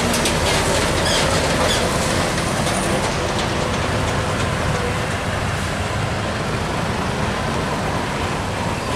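Road traffic passing close by: old diesel trucks and a motor scooter, giving a steady engine rumble and tyre noise.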